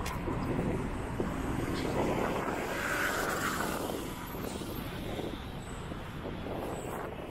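City street traffic: a motor vehicle passes close by, getting louder in the middle and fading towards the end over the steady hum of traffic.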